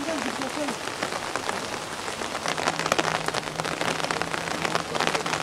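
Heavy rain pouring down, a dense steady hiss full of individual drop hits. A faint steady low hum joins about halfway through.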